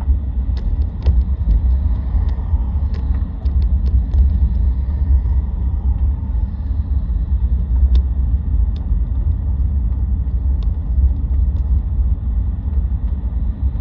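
Steady low rumble of a car driving slowly, with scattered faint clicks, passing a line of Union Pacific diesel locomotives.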